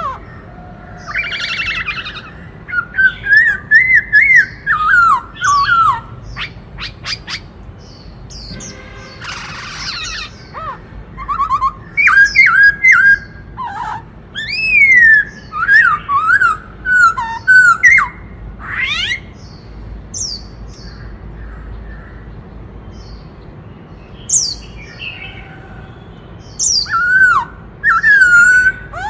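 Black-throated laughingthrush singing: varied whistled phrases that slide up and down, mixed with a few harsh notes, with a lull of a few seconds about two-thirds of the way through.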